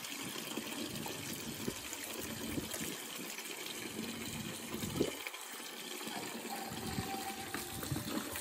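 Tap water running steadily into a plastic bucket, with splashes as water is scooped and poured over a wet dog, one louder splash about five seconds in.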